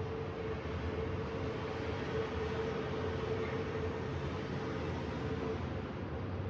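Steady outdoor ambient rumble and hiss, with a faint steady hum held throughout.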